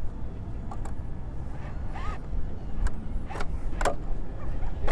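An RC rock crawler's tyres and chassis scraping and clicking over rock in several short bursts, over a steady low rumble.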